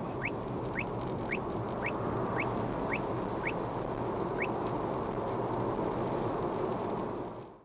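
Uniden R7 radar detector sounding its Ka-band alert: short rising chirps that slow from several a second to about one every half second, with a last chirp about four and a half seconds in, the slowing pace marking a weakening police radar signal. Steady road noise from inside the car runs underneath.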